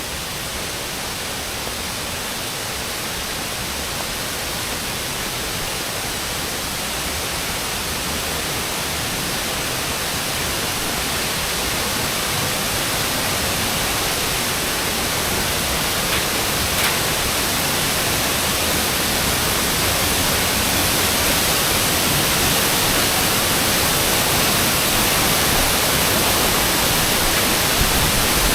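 Steady rushing, hissing noise with no pitch, slowly growing louder.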